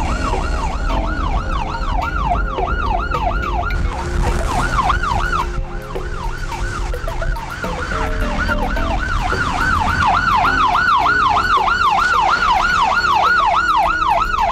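Police car's electronic siren in fast yelp mode, about three to four rising-and-falling sweeps a second, dipping briefly mid-way, over the low rumble of the car on the road.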